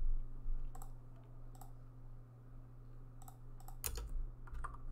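Computer keyboard and mouse clicking: about half a dozen separate clicks, spaced apart, with several close together in the second half, over a steady low hum.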